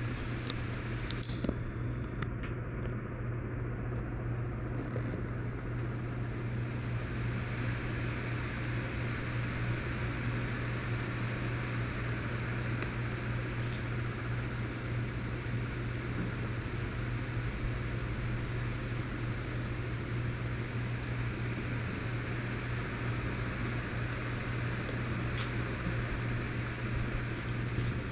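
Steady low hum with room noise, with a few faint light clicks and one sharper tap about twelve seconds in.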